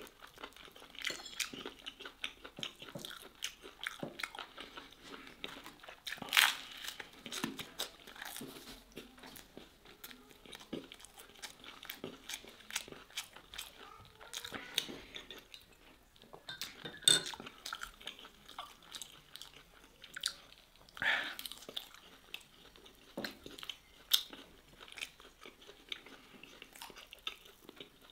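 Close-up chewing of gristly steak: wet mouth sounds and crunching, with a few louder crunches about 6, 17 and 21 seconds in.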